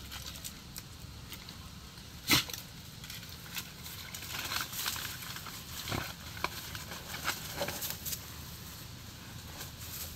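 A hunting dog snuffling and moving about in water as it tries to catch fish, with irregular sharp knocks or splashes, the loudest about two seconds in.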